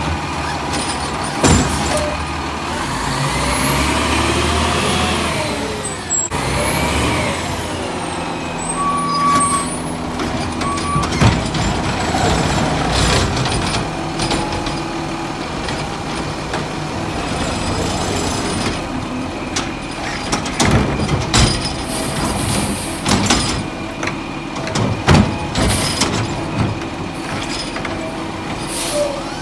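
Diesel engine of an Autocar ACX garbage truck revving up and down several times to drive the hydraulics of its McNeilus ZR automated arm as it grabs, lifts and dumps plastic wheeled carts. Sharp knocks and bangs from the carts being shaken into the hopper and set back down.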